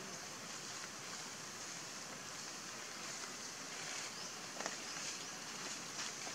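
Steady outdoor background hiss, with a couple of faint clicks about four and a half and six seconds in.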